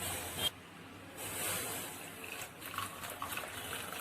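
Hot betel-leaf decoction being poured through a strainer, the liquid splashing and trickling, with two brief surges in the first two seconds.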